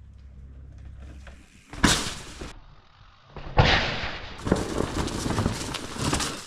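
Air hissing out of a worn mountain-bike tire damaged on a rock. It comes as a short sharp spurt about two seconds in, then a longer uneven hiss from about three and a half seconds that stops near the end.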